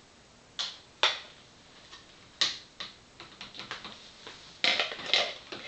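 Sharp clicks and taps of plastic pH/ORP meter probes and a handheld meter being handled over a plastic container of water: a few separate clicks, then a quick run of small ticks and a louder clatter near the end.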